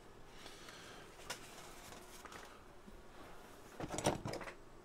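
Quiet handling noise on a workbench: a single light click just over a second in, then a short clatter of hand tools (pliers and a screwdriver) being picked up and moved on the cutting mat near the end.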